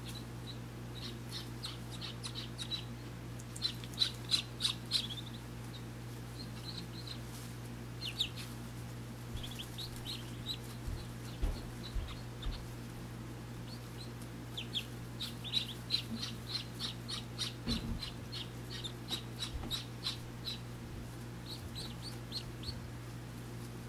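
Muscovy ducklings peeping in quick runs of short, high peeps, several a second, coming in bursts while they huddle under the brooding hen.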